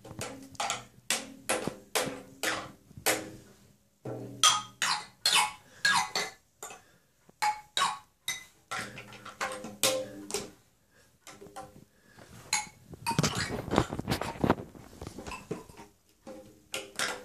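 A baby hitting a toy drum and a toy xylophone with a mallet: uneven strikes about two a second, many ringing briefly, with a quick flurry of hits about thirteen seconds in.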